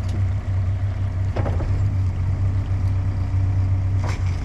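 Diesel engine of a Cat 420F backhoe loader running steadily under work, with a couple of brief knocks.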